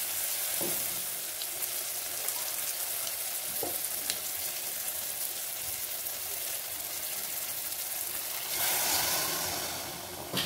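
Masala sizzling and frying in the base of an open pressure cooker, a steady hiss with a few faint clicks. About eight and a half seconds in, the sizzling swells sharply for a second or so as a tumbler of water is poured onto the hot masala.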